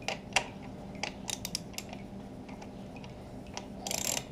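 Hand ratchet with a 10 mm socket backing out the screws of a motorcycle's plastic coolant reservoir: scattered light metallic clicks in the first two seconds, then a short quick run of ratchet clicks near the end.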